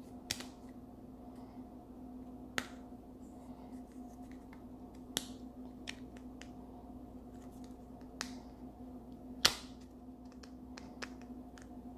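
Plastic Play-Doh tubs and lids being handled: about seven sharp clicks and taps at uneven intervals, the loudest about nine and a half seconds in, over a steady low hum.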